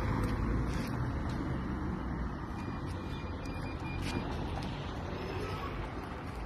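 Road noise from a car driving past on the street, slowly fading away.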